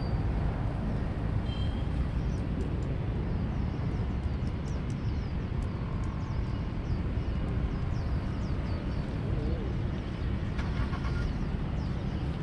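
Outdoor ambience: a steady low rumble with faint, high, short chirps of small birds scattered through it, and a few faint ticks about ten seconds in.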